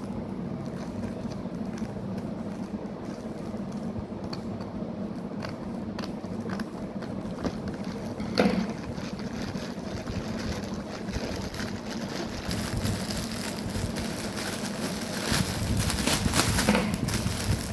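Plastic courier mailer being cut with scissors and handled, the crinkling of the plastic and its clear inner wrap growing louder near the end, over a steady low hum. A single sharp knock comes about eight seconds in.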